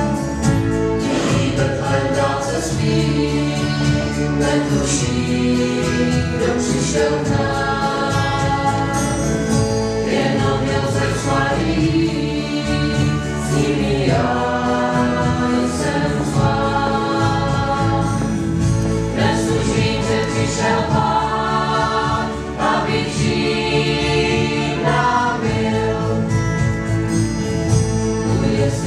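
Church choir singing, with instruments playing along.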